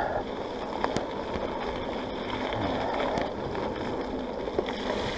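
Mountain bike being ridden along a wet trail: a steady rush of tyre and wind noise, with a few sharp clicks and knocks from the bike.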